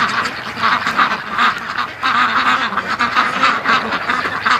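Flock of white Pekin ducks quacking, many calls overlapping without a break.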